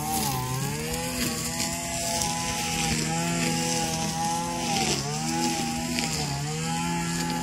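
String trimmer (weed eater) engine running steadily, its pitch dipping briefly and recovering three times as it takes load.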